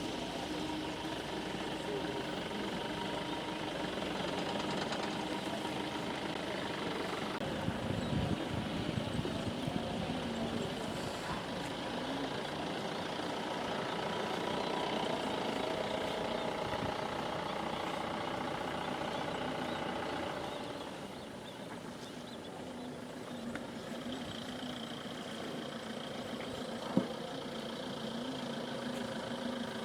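A motor engine idling steadily, with faint voices. It drops quieter about two-thirds of the way through, and there is a single sharp click near the end.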